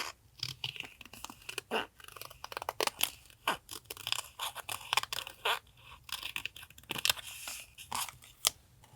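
Paper being handled and worked for a collage journal page: an irregular string of crisp rustles and sharp snaps.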